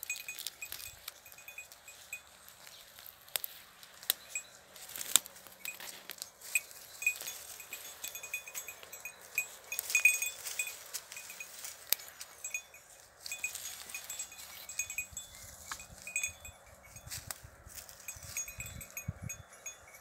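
A small bell on a goat's collar clinking and ringing irregularly as the goat moves and feeds, with scattered sharp clicks.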